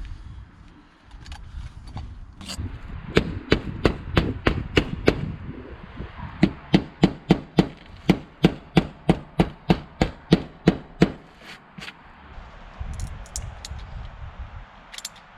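Rapid hammer blows, about four a second, in two runs with a short pause between, then a few light taps near the end.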